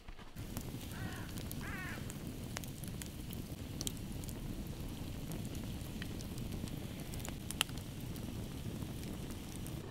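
A crackling wood fire: scattered sharp pops over a steady low rush, with one louder pop about two-thirds of the way through.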